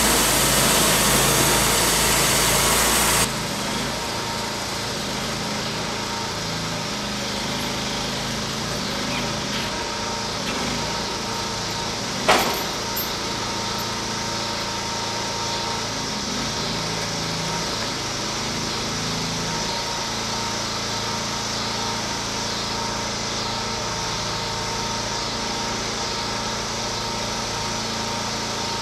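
Portable sawmill engine running steadily: louder and fuller for the first three seconds, then dropping abruptly to a quieter, even run like an idle. A single sharp knock comes about twelve seconds in.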